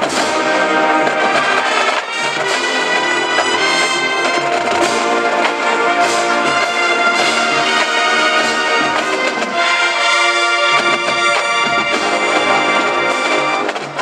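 College marching band playing loud, full brass music, trumpets and trombones together, with a short drop in volume just before the end.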